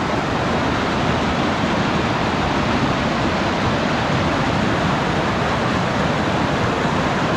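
Whitewater pouring over a rock ledge into a river hole, a loud, steady rush of rapids close to the microphone.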